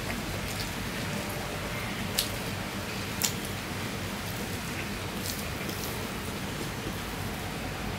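Fingers mixing rice on a stainless steel plate: soft mixing noises with two sharp clicks against the steel, about two and three seconds in, over a steady low hum.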